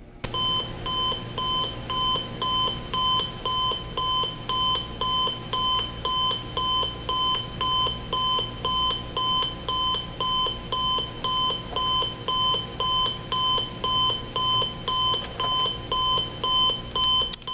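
Timex T231G clock radio's buzzer alarm going off: a high electronic beep repeated about twice a second at a steady level.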